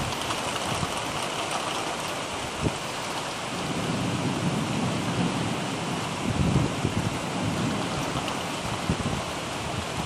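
Heavy rain falling steadily, with a low rumble of thunder swelling up in the middle.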